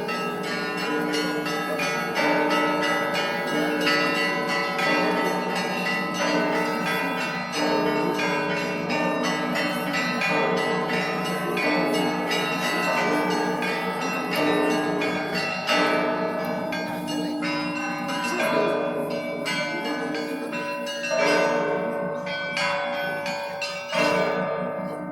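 Russian Orthodox church bells rung together in a fast, continuous peal: small high bells chiming rapidly over steady deeper bells. A last loud stroke near the end rings on and fades as the ringing stops.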